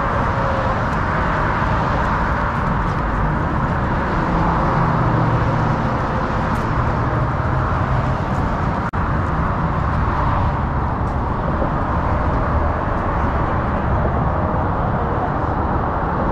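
Steady noise of road traffic heard from the bridge walkway. The sound drops out for an instant about nine seconds in.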